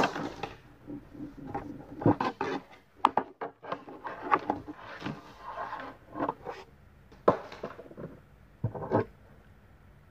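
Hard plastic toy figures clicking and knocking together as they are handled, in a run of short, irregular knocks.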